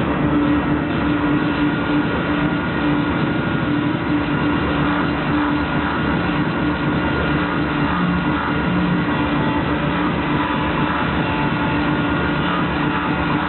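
Live industrial rhythmic-noise music played loud over a concert PA: a dense wash of noise over a steady droning tone.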